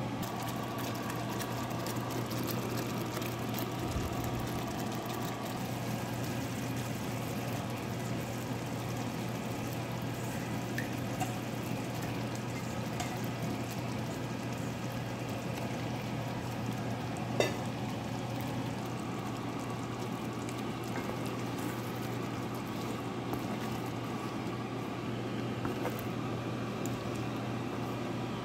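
Thick curry gravy simmering in a pan, a steady bubbling with faint scattered pops over a constant low hum. A single sharp tap about two-thirds of the way through.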